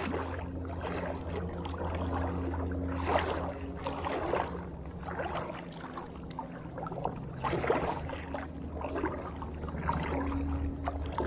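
Water sloshing and splashing around the legs of a person wading through knee-deep water on a shallow flat, in uneven splashy strides, over a steady low hum.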